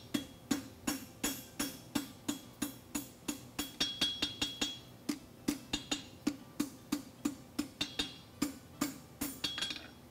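A hand hammer striking red-hot 5/8-inch square steel on an anvil in a steady rhythm of about three blows a second, with the anvil ringing on some strokes. This is the farrier forge-welding the corner of the heel caulk on a horseshoe.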